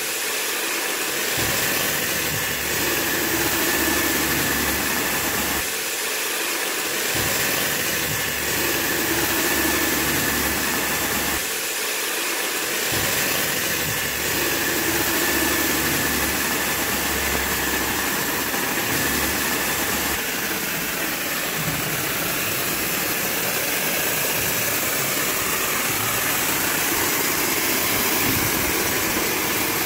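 Robowash touchless car wash machine running through its foam stage: a steady hiss of foam spraying onto the car over the hum of the pumps and motors, with a faint steady whine. The low hum drops away briefly twice.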